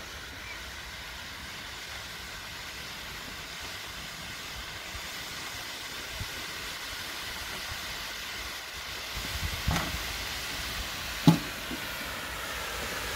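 Steam hissing steadily from a dustbin of quicklime slaking under its lid, the sign of a vigorous hot-mix reaction; the hiss slowly grows louder. A few soft knocks and one sharp knock come near the end.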